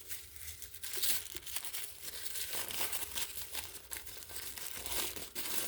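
Packaging being handled and unwrapped: irregular crinkling and rustling with small crackles as the wrapping is pulled open.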